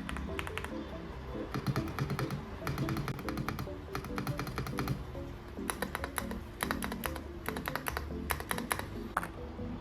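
Typing on a YUNZII X98 mechanical keyboard: quick runs of key clicks in several bursts with short pauses between, over background music.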